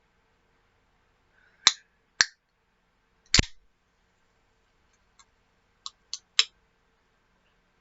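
Sharp, short clicks: three loud ones in the first half, then four fainter ones close together near the end.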